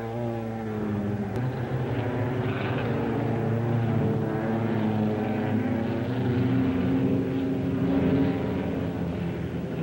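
Sprint car V8 engines running hard on a dirt track, a steady loud drone whose pitch shifts a little as the cars slide through the turn.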